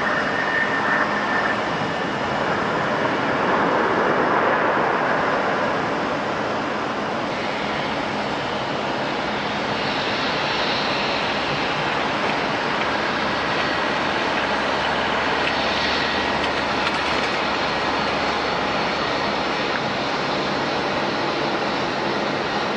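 Jet airliner engines running, a steady rushing roar with a faint high whine that comes in during the second half.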